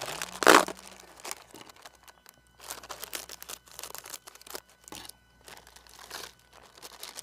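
Plastic chip packets crinkling as small Bingo chips pouches are handled, cut open and emptied, a run of irregular crackles, with the loudest rustle about half a second in.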